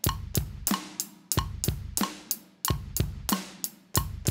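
Drum kit playing a basic beat: two bass drum kicks, a snare hit and a hi-hat tick ('boom boom chuck tick'), about three strokes a second, the pattern repeating evenly at about 90 beats a minute.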